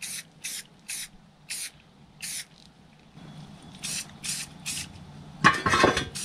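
Aerosol can of Rust-Oleum semi-gloss protective enamel spray-painting small brake parts in short, quick bursts of hiss, about ten in all. A louder, longer burst comes about five and a half seconds in.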